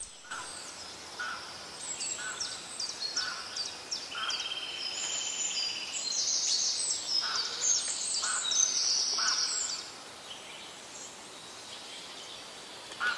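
Several wild birds calling together: a rapid string of short high chirps and whistles, a buzzy trill about four seconds in, and a short lower note repeated a little under once a second. The calling dies down near the end, leaving a soft background hiss.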